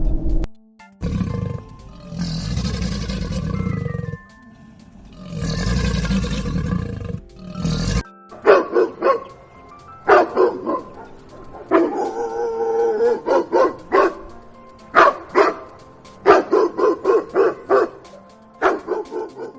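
Dog barking in quick runs of several barks over background music, after two long, rough animal calls in the first few seconds.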